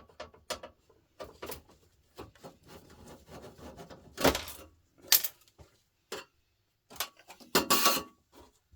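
Metal clinks and knocks from a fluorescent light fitting being unscrewed by hand: a screwdriver working Phillips screws out of the fitting, with screws and parts clattering on metal. Light scattered clicks, with louder clatters about four and five seconds in and near the end.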